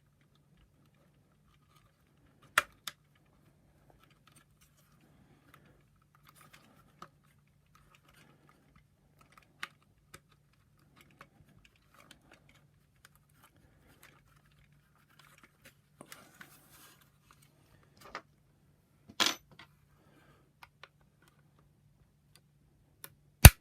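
Scattered clicks and knocks of plastic vacuum power-nozzle parts being handled and pressed into place, with a few sharper clicks, the loudest just before the end, and a short scrape about two-thirds of the way in. A faint steady low hum runs underneath.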